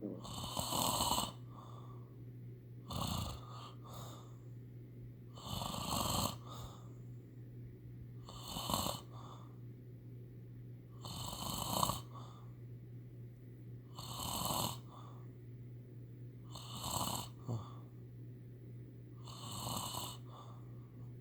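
A sleeper snoring, about eight snores spaced roughly three seconds apart, with a steady low hum underneath.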